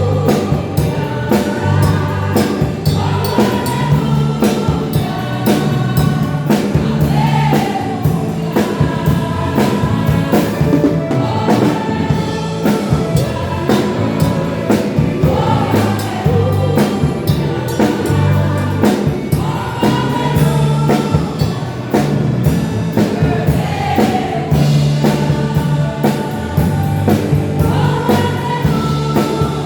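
Women's church choir singing a gospel hymn over instrumental accompaniment, with a sustained bass line and a steady beat.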